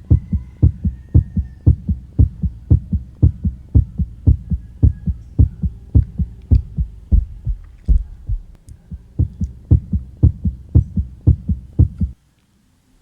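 Heart sounds picked up through a stethoscope on the chest during cardiac auscultation: a steady, fast rhythm of low thumps that cuts off suddenly about a second before the end.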